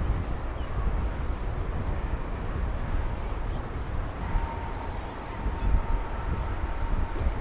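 Wind buffeting the microphone outdoors, a steady low rumble, with a faint thin steady tone coming in about halfway through.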